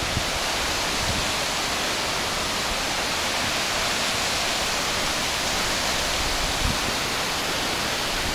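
Coopey Falls waterfall rushing steadily: an even hiss of falling water with little bass.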